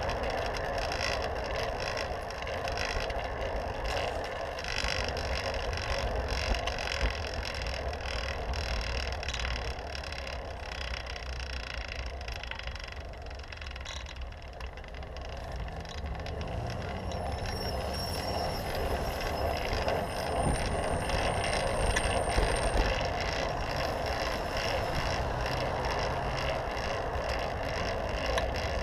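Steady rushing noise of a fixed-gear bicycle rolling along a city street: wind on the bike-mounted camera's microphone and tyre noise on asphalt. From about halfway through, a car engine hum joins in and the noise grows a little louder.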